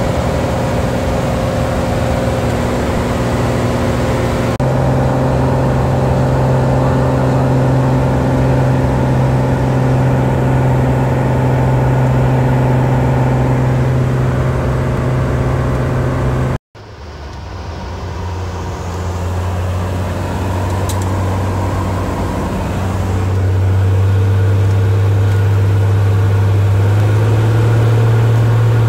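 Cessna floatplane's piston engine and propeller heard from inside the cabin, a loud steady drone. Over halfway in the sound cuts off abruptly, then comes back at a lower note and builds in loudness, rising a little in pitch near the end, with the plane on the water.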